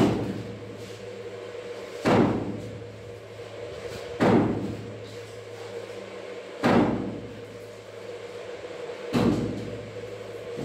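Heavy knocks repeating about every two seconds, five in all, each ringing out briefly, over a steady low hum.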